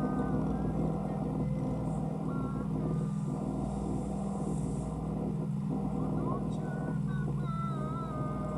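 Steady low drone of a dive boat's engine machinery, with faint wavering voices over it.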